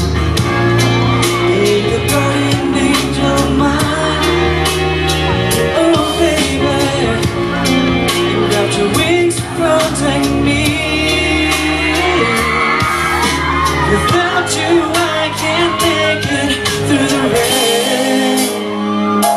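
Pop-rock song played live over a hall's sound system: a sung vocal line over guitar and drums, with shouts and whoops from the audience.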